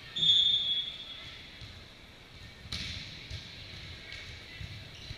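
Volleyball referee's whistle, one short blast lasting under a second, signalling the serve. About two and a half seconds in comes a single sharp smack of a hand striking the volleyball.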